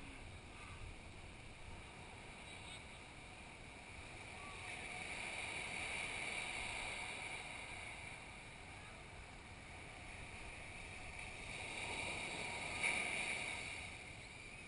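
Ocean surf breaking and washing up a sandy beach, heard faintly: the wash swells up about four seconds in and again near the end, over a low steady rush.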